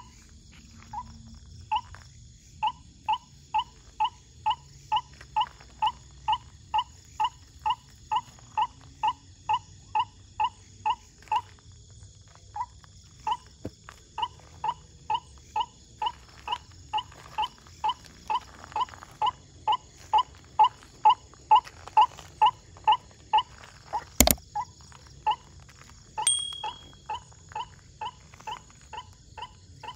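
White-breasted waterhen call, a short note repeated in a fast, even series of about two to three a second with a brief break near the middle, over a steady drone of night insects. A single sharp crack about 24 seconds in.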